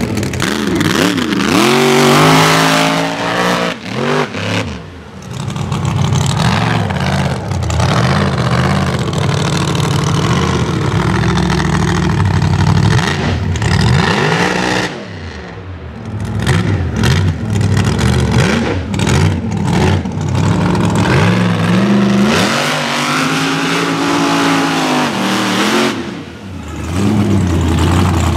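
Mega mud truck engine revving up and down over and over as the truck drives through dirt and mud, with the noise of its tyres churning the ground; the sound dips briefly three times.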